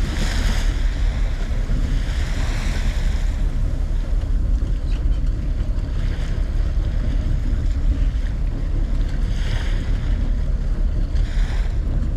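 Wind buffeting the microphone and water rushing against a sport-fishing boat as a steady low rumble, with a few brief louder rushes of spray or wash.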